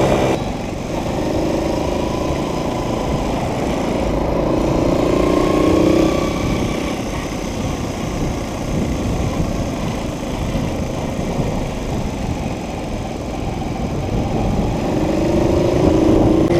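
1974 Honda PC50 moped's 49cc four-stroke single-cylinder engine running on the move, its pitch rising as it speeds up about four to six seconds in, easing off, then climbing again near the end. Wind and road noise rush steadily underneath.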